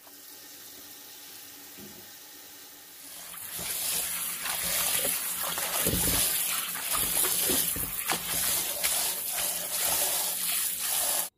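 Tap water running into a stainless steel bowl of cat's ear leaves, with a hand swishing and splashing the leaves as they are rinsed. The water gets louder about three seconds in and cuts off suddenly at the end.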